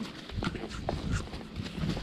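Hoofbeats of a Tennessee Walking Horse mare moving along a trail under a rider, a run of irregular dull thuds.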